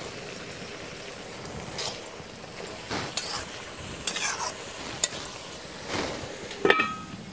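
Metal spatula stirring and scraping vegetables in a metal kadai over a steady sizzle, about six scrapes spread a second or so apart. Near the end comes one louder metallic clink with a short ring.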